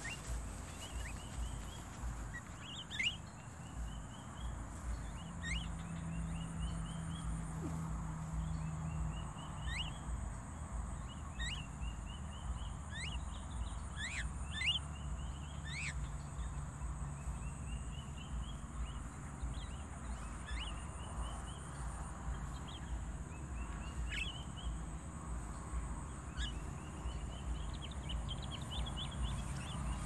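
Javan mynas calling: short runs of rising notes and quick downward whistles, repeated every second or two.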